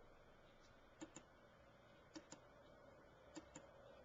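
Faint computer mouse clicks: three clicks about a second apart, each a quick pair of sharp ticks.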